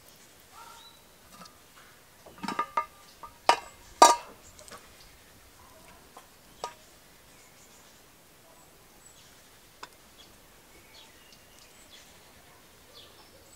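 Metal pot lid clinking against its pan several times as it is taken off, loudest about four seconds in, followed by a few light taps and scrapes of a wooden spoon in the pan of cooked rice pilaf.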